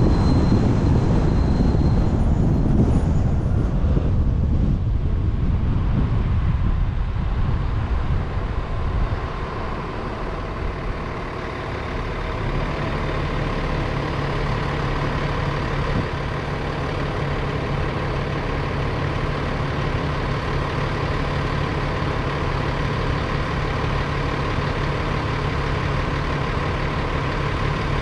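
Road traffic heard from a roof-mounted camera on a car: road and wind rumble while moving, easing off and settling after about twelve seconds into a steady engine hum.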